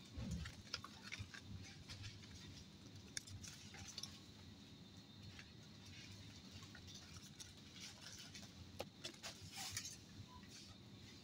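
Faint rustling and clicking of cardboard-backed silicone potholder packs being handled and shuffled, with a low thump at the very start, over a quiet background hum.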